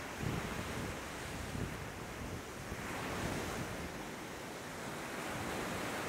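Small sea waves breaking and washing up a sandy beach, with wind buffeting the microphone. The wash of a breaking wave swells about halfway through.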